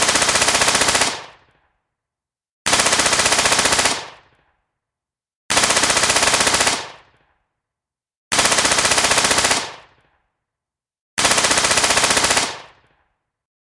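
FN P90 5.7×28mm personal defence weapon firing on full auto: five bursts of rapid shots, each about a second and a half long with a short fading echo, spaced about three seconds apart.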